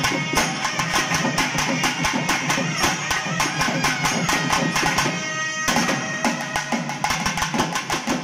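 Live temple band of trumpet and clarinets playing a melody over rapid barrel-drum strokes. About five seconds in the drums drop out briefly while a single held wind note sounds alone, then the drumming resumes.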